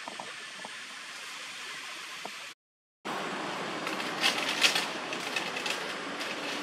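Steady outdoor background hiss with a few faint clicks. It drops out briefly about two and a half seconds in, then comes back louder, with a cluster of short crackling rustles about a second later.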